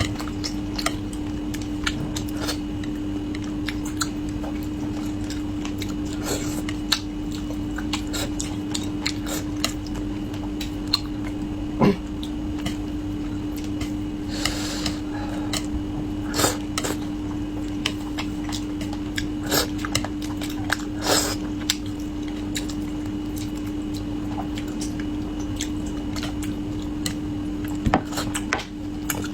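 Eating sounds of a person working through braised fish: scattered chewing and short clicks and taps of utensils against a dish, over a steady low hum.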